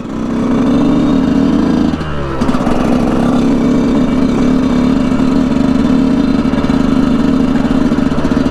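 Yamaha YZ125 two-stroke dirt bike engine running steadily under way. The revs dip and shift briefly about two seconds in, then hold steady.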